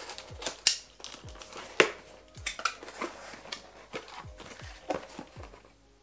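Cardboard mailer box being slit open with a craft knife and its flaps pulled apart: a run of sharp clicks, snaps and scrapes, two of them much louder than the rest. Background music with a steady low beat runs underneath.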